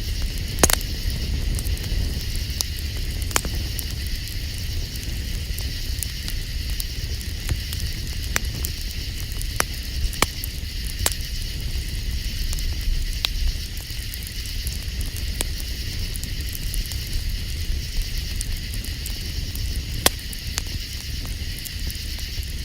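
Campfire crackling, with sharp pops scattered irregularly over a steady low rumble. The loudest pops come just under a second in and again near the end.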